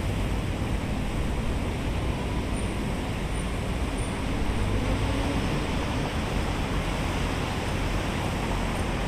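Steady outdoor ambient noise, an even wash with a low rumble and no distinct events.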